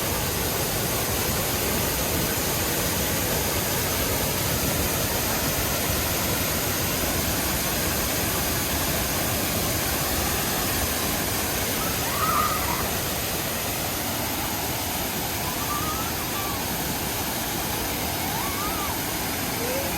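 Waterfall rushing steadily, an even wash of falling water. A few faint, brief calls rise over it about twelve seconds in and again near the end.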